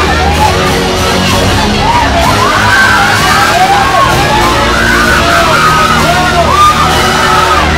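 Loud party music with a steady bass, and a crowd of many voices yelling and whooping over it.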